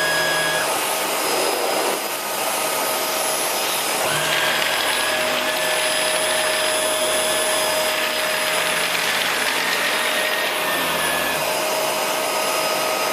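Shark Rotator Lift-Away upright vacuum running on carpet: a steady motor whine over a rush of air, its pitch and hiss shifting slightly about four seconds in.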